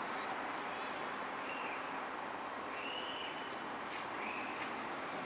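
A bird calls about three times with short arched whistled notes over a steady hiss of distant traffic.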